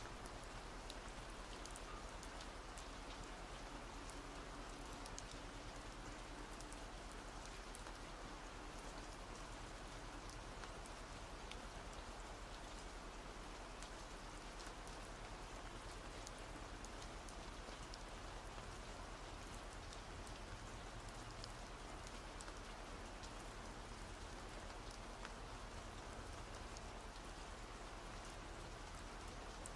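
Steady rain falling, a constant hiss dotted with many small drop ticks.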